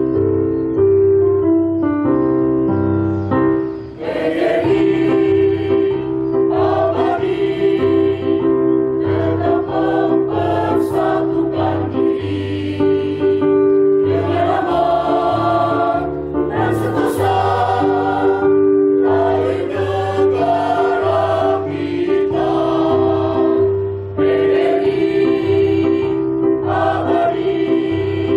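A mixed choir of school teachers singing in unison with keyboard accompaniment; the keyboard plays alone for about the first four seconds before the voices come in.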